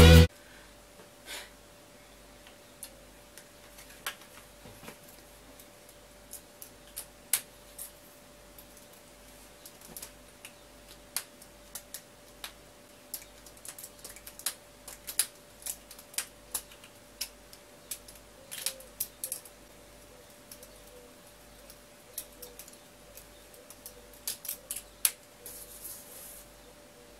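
Irregular small clicks and taps of hands handling things on a wooden table with a sheet of paper, over a faint steady hum.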